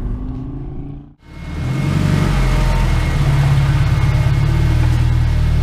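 1989 Honda Prelude's engine running steadily, heard close to the car. The sound breaks off sharply about a second in, then swells back up and holds steady.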